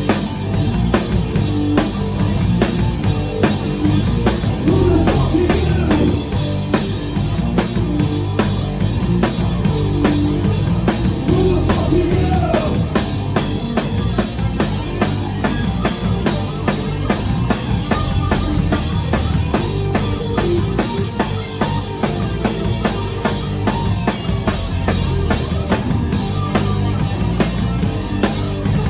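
Live rock band playing a song, with the drum kit driving a steady beat.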